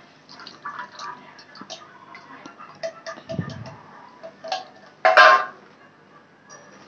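Small clicks and taps of a steel pot and a plastic strainer knocking against a metal kadhai as dark liquid is poured and strained into it, with one louder clatter about five seconds in.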